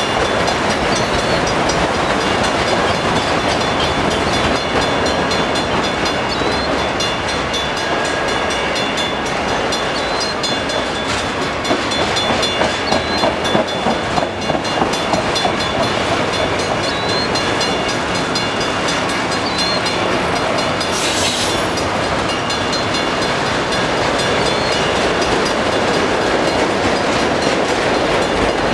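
Autorack freight cars rolling slowly past: a steady rumble and rattle of steel wheels on rail, with short high squeaks now and then. A brief high hiss sounds about 21 seconds in.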